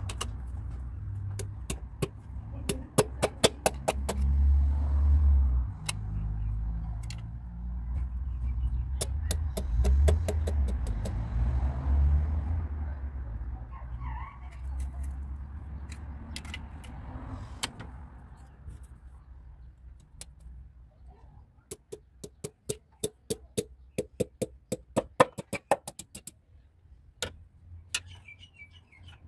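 Sharp metallic clicks and taps from a piston ring compressor and hand tools being worked on a bare engine block, some in quick runs of several a second. Under them is a low rumble that fades out about two-thirds of the way through.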